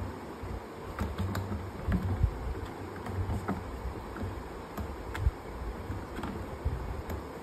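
A kitten moving about inside a plastic bucket lying on its side, with scattered light clicks and scratches over a low rumble.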